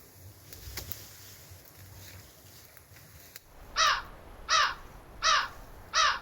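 A bird giving four loud, harsh calls in a row, about three-quarters of a second apart, starting a little past halfway.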